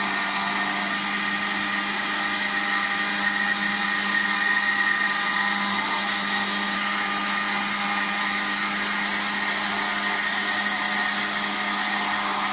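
Electric countertop blender with a glass jar running steadily, blending a mint, lemon and Sprite drink with ice cubes, with a constant even motor whine.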